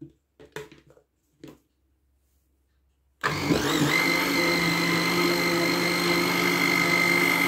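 Countertop blender motor starts about three seconds in, its pitch climbing quickly and then settling into a steady whine as it purées watermelon and mint in a glass jug. A few short knocks come before it.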